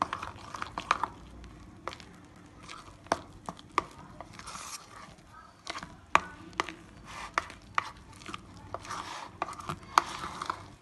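A spoon mixing a thick ground-lentil batter in a ceramic bowl: irregular sharp clicks of the spoon striking the bowl, with wet scraping and squelching of the paste in between.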